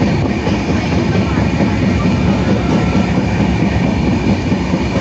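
A train running on rails: a steady, loud rumble.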